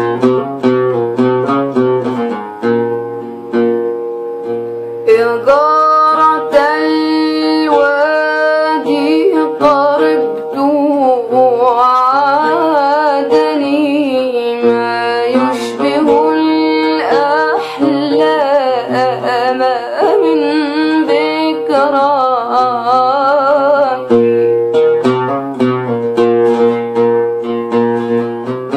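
A woman singing while accompanying herself on a plucked string instrument. The instrument plays alone at first. Her voice comes in about five seconds in with a wavering, ornamented melody and stops near the end, leaving the plucked instrument playing on its own.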